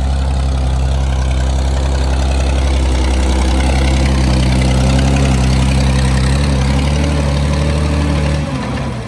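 Farm tractor engine running steadily while mowing thistles. Near the end its sound drops away sharply.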